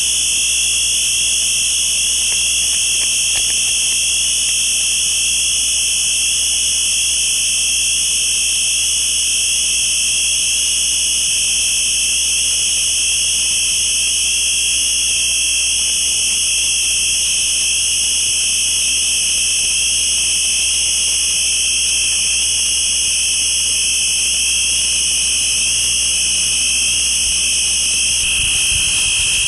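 Harsh noise music: a steady, shrill wall of high-pitched noise over a low hum, unchanging in level. Near the end a low, fluttering rumble comes in underneath.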